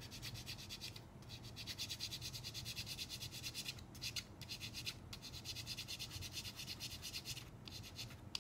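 Small hand file scraping in quick back-and-forth strokes on part of a VFC gas blowback airsoft magazine, in several runs broken by short pauses about one, four, five and seven and a half seconds in. The part is being filed thinner to fix a gas leak at the magazine catch slot. A single sharp click comes right at the end.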